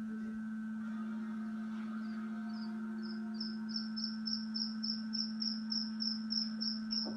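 Newborn black francolin chick peeping: short, thin, high notes repeating evenly about three times a second, starting about three seconds in, over a steady electrical hum.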